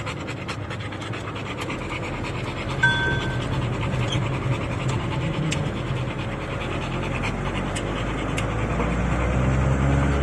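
Dog panting quickly. A short beep sounds about three seconds in, and a low rumble builds toward the end.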